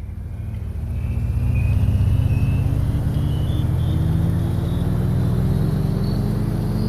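A motor vehicle's engine running and slowly speeding up, its pitch rising steadily; it fades in at the start and then holds steady.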